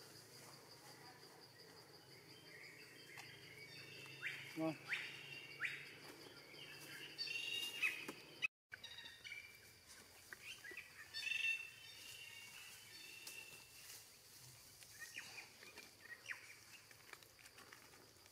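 Birds chirping intermittently in forest, over a steady high-pitched insect drone.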